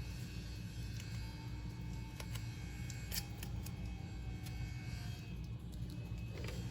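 Faint handling sounds of painter's tape being worked around small plastic receptacle spacers: scattered light clicks and rustles over a low steady hum.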